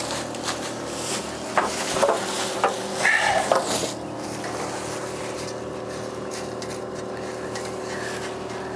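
A motor hums steadily while an air hose is put onto an old tire to inflate it. Short clanks and bursts of air hiss come in the first four seconds, and after that only the steady motor hum is left.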